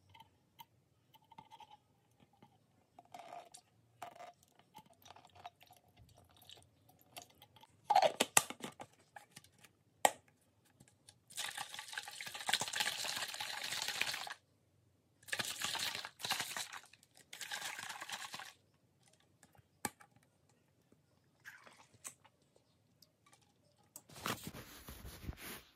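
A lemon half squeezed by hand into a plastic water bottle, with soft squishing and dripping, then two sharp clicks. The bottle of water is then shaken in three bursts, the longest about three seconds, with the water sloshing inside.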